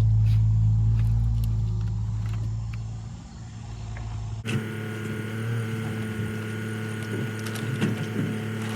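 An engine runs steadily and fades away over the first few seconds. Then, after an abrupt cut, a different steady mechanical hum runs with scattered light knocks.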